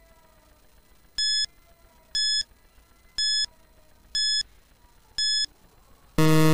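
Countdown timer sound effect: five short, high beeps about one a second, then a louder, lower buzzer near the end as the timer reaches zero, signalling that time is up.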